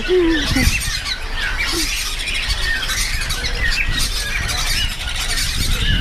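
A cage of cockatiels chirping and squawking, many short high calls overlapping one another, among them the calls of a hand-fed young cockatiel that keeps on calling.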